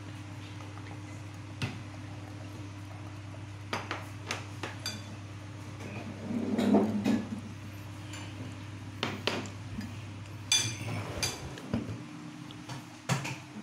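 Metal spoons clinking and scraping against ceramic plates and a serving bowl, a scattered series of light clinks over a steady low hum, with one louder, lower sound about halfway through.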